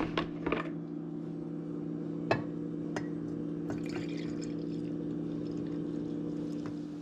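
Coffee poured from a glass coffee-maker carafe into a ceramic mug, a steady pour filling the mug. A few clinks near the start and a sharp one just over two seconds in.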